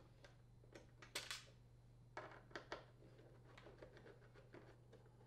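Faint, scattered clicks and small metallic ticks of a Phillips screwdriver working the door latch mounting screws out of a dishwasher's metal door frame, over a low steady hum.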